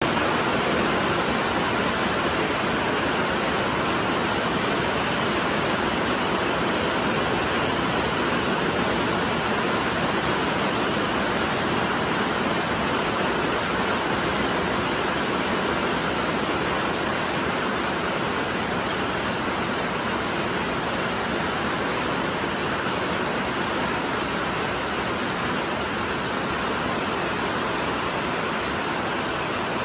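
Steady rain falling on dense tropical forest foliage, an even hiss that eases slightly near the end.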